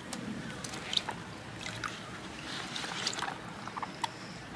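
Water sloshing and splashing in a plastic tub as a guinea pig is washed by gloved hands, with scattered small wet clicks and squishes.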